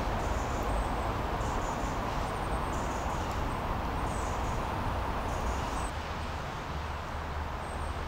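Steady outdoor ambient noise with a low rumble, and short high chirps repeating every second or so. The chirps stop and the sound thins slightly about six seconds in.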